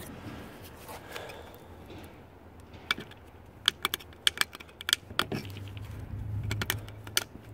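Knife blade scratching the stator windings of a dishwasher motor: a scatter of short, sharp clicks and scrapes from about three seconds in. It is a scratch test of whether the windings are copper, and they scratch like copper.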